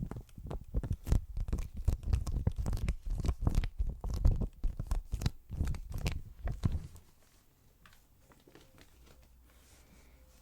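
Close-miked handling of a small gift bag: a dense run of crinkling, rustling and sharp strokes with dull low bumps, stopping about seven seconds in and leaving quiet room tone.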